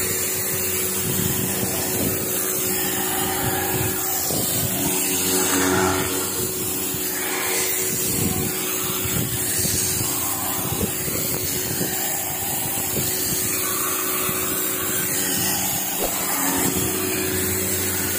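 High-pressure water blaster used for cleaning a boat hull, running steadily: a constant pump hum under a hiss of spray.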